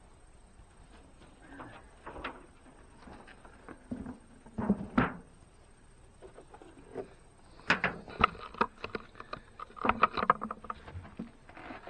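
Irregular clicks, taps and knocks of a sugar-water bee feeder and its cap being handled during refilling. A cluster comes about five seconds in, and a busier run follows from about eight to eleven seconds.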